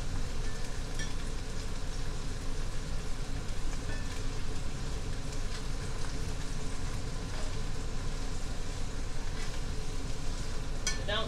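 Collard greens frying in bacon grease in a skillet, a steady sizzle, wilted down and nearly done. A metal spoon stirs them, with a few light scrapes against the pan.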